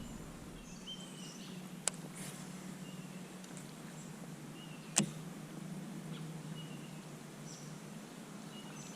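Quiet outdoor river ambience with faint, short bird chirps scattered throughout, broken by two sharp clicks: a light one about two seconds in and a louder one about five seconds in.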